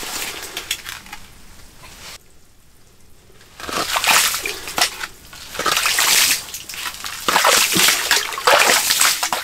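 Ice scoop skimming slush and ice chips in an ice-fishing hole: water sloshing and splashing in a series of strokes, with a quieter spell of about a second and a half near the start.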